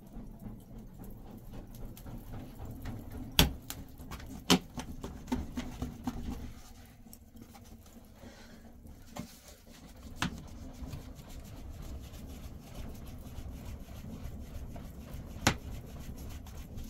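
Embers in a mud hearth being fanned by hand with a flat plastic fan: a steady low whooshing of moving air, broken by four sharp knocks.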